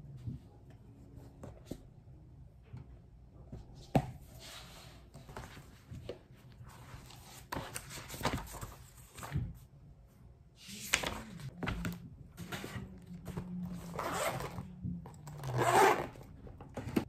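Desk handling sounds: a sharp tap about four seconds in, notebook pages rustling as they are flipped, then a zipper pulled on a metallic pencil case near the end, the loudest sound.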